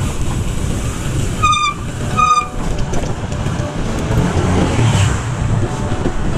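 Wind rush and road noise on a handlebar-mounted camera while cycling through street traffic. About one and a half seconds in there are two short high-pitched beeps, under a second apart.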